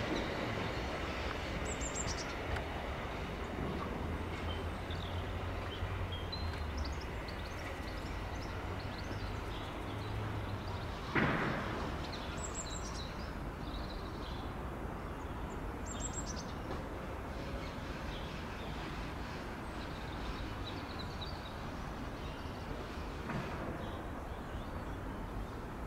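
Outdoor railway-platform ambience as a train's sound dies away: a steady low hum and general background noise, with birds chirping now and then. A single sharp knock comes about eleven seconds in.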